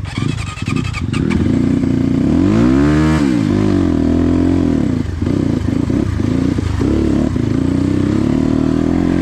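Motorcycle engine running while riding, revving up sharply about three seconds in and dropping straight back, then pulling on with smaller rises and dips as the throttle is worked. A quick rattle of clicks in the first second or so.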